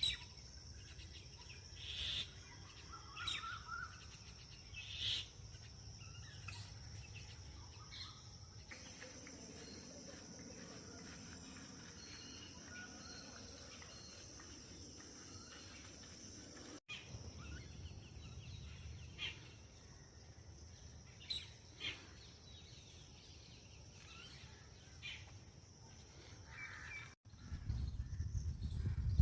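Birds chirping and calling now and then over a steady high-pitched drone, with a low rumble underneath.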